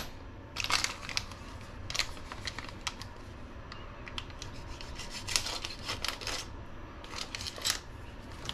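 Small plastic parts bags crinkling and light clicks of small hard parts being handled on a workbench, in short irregular bursts.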